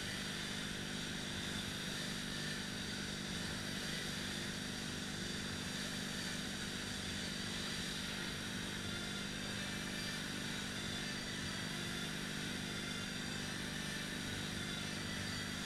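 Steady whirring of the fan flywheels of two air-resistance rowing machines being rowed hard, with a constant low hum underneath.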